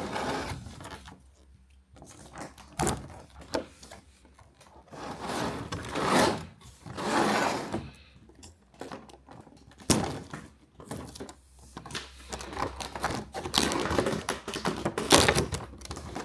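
Plastic blister packaging being handled and pulled from a cardboard box: crinkling rustles with scattered clicks and knocks, one sharp click about ten seconds in, and busier crackling near the end.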